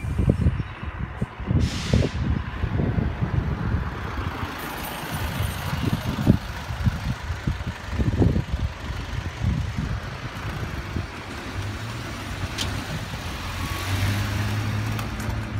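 Gusty wind buffeting the microphone over a steady background of outdoor traffic and station noise, with a low steady hum joining near the end.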